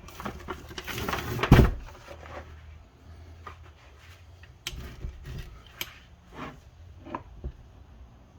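Knocks and clicks of Honda Civic transmission parts being handled during reassembly; the loudest is a heavy knock about a second and a half in, followed by scattered lighter clicks.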